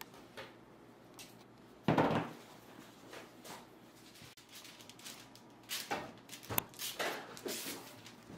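A single thump about two seconds in, then parchment paper rustling and crinkling in short bursts as it is handled and spread out on a countertop.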